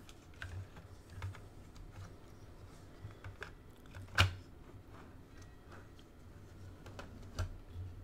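Light clicks and taps of plastic and circuit board being handled as the board is worked out from under the retaining tab of an opened Kidde i9030 smoke alarm. One sharper click comes about four seconds in.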